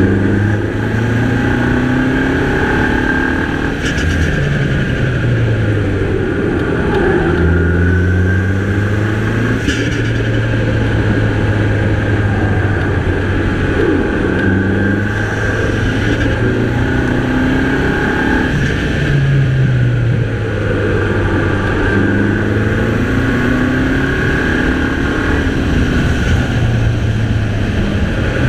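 Mini Cooper's 2.0-litre turbocharged four-cylinder engine under hard driving, its pitch climbing and then dropping back again and again as it accelerates and lets off between bends.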